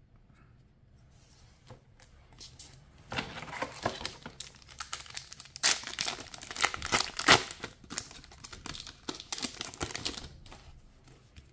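A trading-card booster pack's foil wrapper crinkling and being torn open by hand. The crackling starts about three seconds in, is dense and uneven, and dies away near the end.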